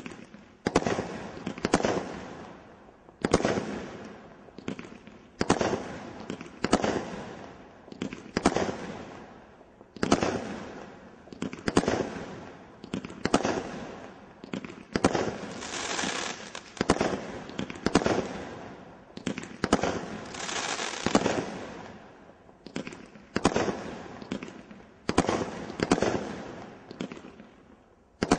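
Brothers Pyrotechnics Vendetta, a Category 3 combination Roman candle, firing shot after shot, roughly one a second, each sharp report dying away, with a couple of longer, denser stretches of sound around the middle.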